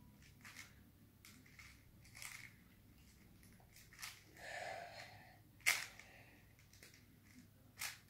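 Plastic 5x5 Rubik's cube being turned by hand: irregular clicks and clacks as its layers snap round, with a short scraping turn about halfway through and the loudest click soon after.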